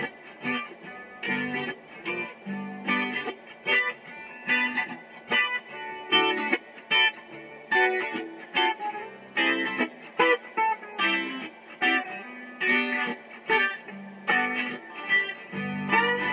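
Electric guitar played solo, picking notes and chords in a quick, uneven run of plucked attacks.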